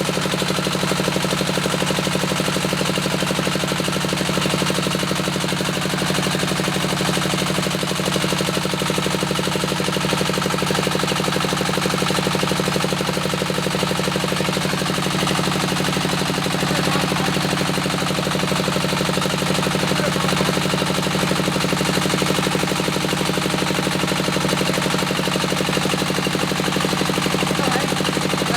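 Diesel engine of a small bore well drilling rig running steadily at constant speed, a rapid even clatter with a strong low hum.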